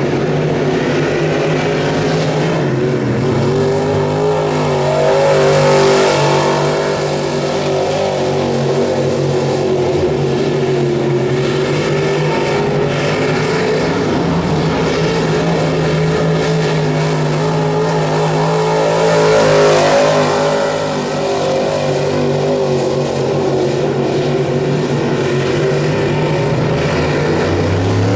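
Crate late model race car's V8 engine running hard around a dirt oval on a qualifying lap, swelling loudest twice, about 13 seconds apart, as the car passes.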